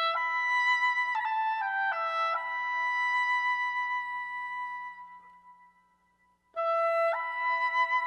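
Instrumental new-age music: a woodwind plays a phrase of held notes that step from one to the next and fade out about five seconds in. After a short near-silent gap a new phrase starts about six and a half seconds in.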